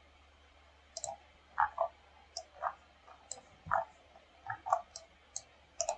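Light clicks of a computer mouse and keyboard, about a dozen at irregular intervals.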